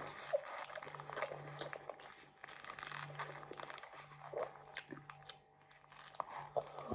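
Close-up eating sounds of a burger being chewed, with small wet mouth clicks and the paper wrapper crinkling in the hands, and a fresh bite near the end. A low steady hum runs in the background.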